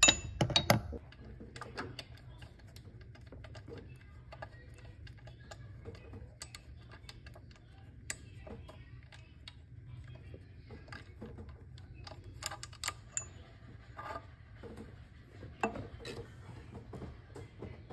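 Ratchet wrench clicking in short runs as a 13 mm socket loosens the idler pulley bolt, with a few louder metallic clinks of tools and parts.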